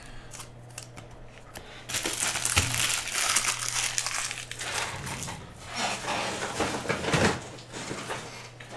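Foil trading-card pack wrappers crinkling and crumpling as they are handled, starting about two seconds in and going on unevenly before easing off near the end.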